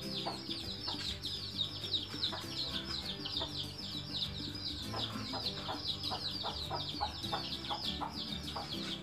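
Chicks peeping continuously: high, quick peeps that slide downward, several a second, over quiet background music.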